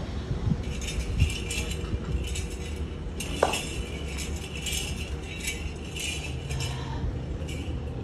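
Metallic jingling in short, irregular bursts repeating roughly every half second, over a low steady rumble. A brief falling squeak comes a little over three seconds in.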